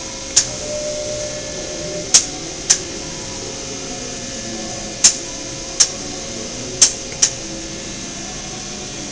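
Cincinnati-Milacron Arrow 750 CNC vertical machining center moving its table axes: a steady hum with a thin whine, broken by seven sharp metallic clicks, mostly in pairs, a little sheet metal noise as the table travels.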